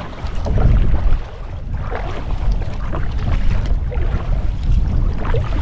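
Wind buffeting the camera microphone with a heavy low rumble, over irregular splashes of water.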